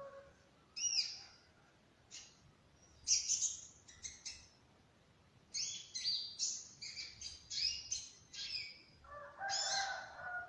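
A songbird chirping and trilling in short, quick bouts separated by brief pauses. Near the end a lower, drawn-out call joins in.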